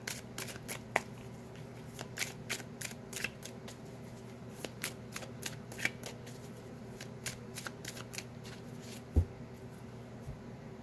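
A tarot deck shuffled overhand-style in the hands: a run of quick, irregular soft card snaps. There is a single dull thump near the end.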